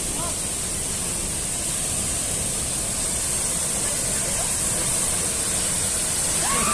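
Steady rushing of a tall waterfall, the water falling over 40 metres.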